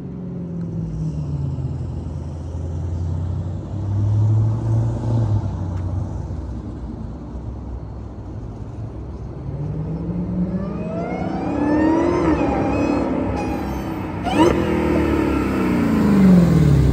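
Dodge Hellcat's supercharged 6.2-litre V8, fitted with a Corsa intake, running at a low rumble with a brief rev about four seconds in. From about ten seconds in it accelerates hard: the engine note climbs and falls, jumps again about fourteen seconds in, then falls away, with a high whine rising and falling with the revs.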